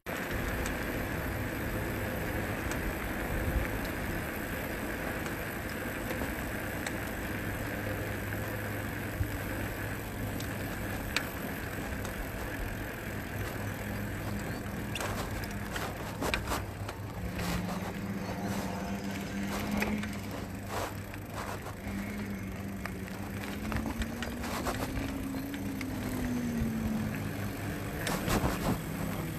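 Riding noise from a handlebar camera on a moving bicycle: steady wind rush on the microphone and tyre noise on pavement, with a pitched hum that rises and falls in the second half and a few knocks from bumps.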